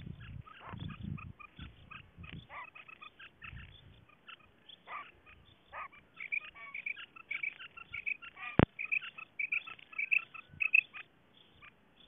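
Female common quail calling: a quick run of short, high chirping notes, louder in the second half. A single sharp click sounds about two thirds of the way through.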